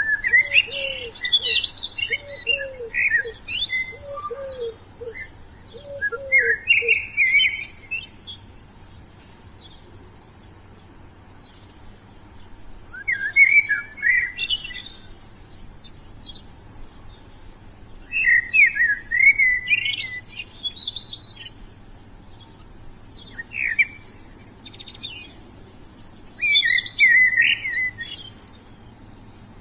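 A wild songbird singing in separate bouts of quick, high chirps and warbling trills, a new phrase every few seconds with short pauses between. Over the first seven seconds a lower, short falling note repeats about five times beneath the song.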